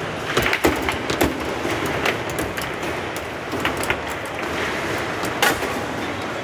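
Table football game in play: irregular sharp clacks and knocks of the ball being struck by the plastic figures and rebounding off the table, with the metal rods sliding and knocking, over a steady background hum.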